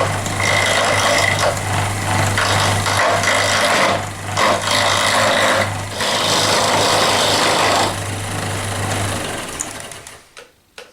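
Lathe motor humming while a turning tool cuts a wooden handle blank down to round, in three long cuts with short breaks between them. The motor hum stops near the end and the sound dies away.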